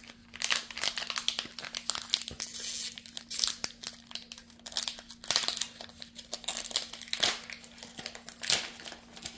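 Pokémon TCG booster pack's foil wrapper crinkling and being torn open by hand, in irregular crackles throughout.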